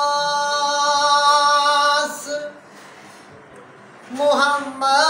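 A man's unaccompanied voice reciting an Urdu naat, holding one long sung note for about two seconds, then after a short pause starting the next sung phrase.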